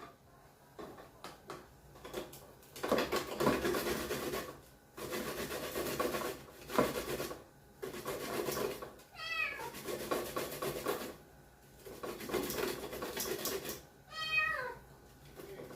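A young cat meows twice, about nine seconds in and again near the end, each meow falling in pitch. Between and around the meows come long rasping strokes of garlic being grated by hand.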